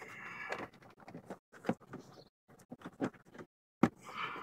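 Hands fitting a plastic fuse-box cover panel and handling loose wiring: scattered light knocks, clicks and rustling, with one sharp click near the end.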